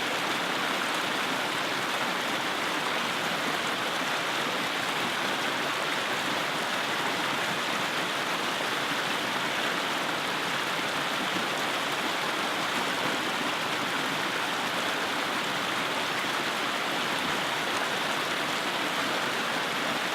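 Mountain creek rushing steadily over and between rocks.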